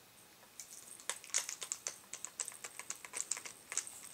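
A quick, irregular run of soft clicks and taps, roughly three or four a second, starting about half a second in.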